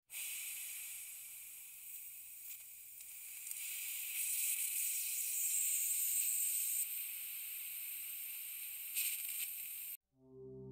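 A steady high hiss that swells in the middle, flares briefly twice, and cuts off suddenly near the end. Music with long held tones begins just after.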